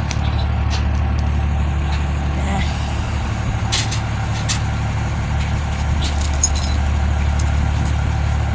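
A vehicle engine running steadily at a constant low speed, with a few faint clicks over it.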